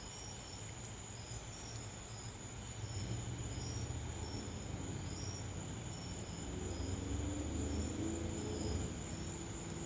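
Wind chimes tinkling, light high notes at slightly differing pitches, over a steady high insect drone, with a low rumble building from about three seconds in.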